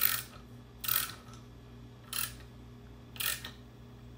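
Hand tap turned in its tap handle, cutting threads in an engine block: four short, sharp rasping clicks about a second apart, one with each turn of the handle. The tap is worn and not cutting as well as a new one would.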